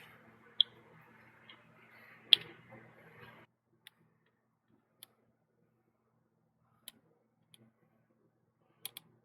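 Sparse, sharp clicks and taps from handling small tools and handlebar grip parts, the loudest about two seconds in, over a faint low hum that cuts out about a third of the way through.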